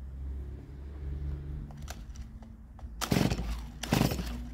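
Stihl MS170 two-stroke chainsaw being pull-started cold on full choke after years of storage: two quick rasping pulls of the recoil starter cord about three seconds in, the engine turning over without catching.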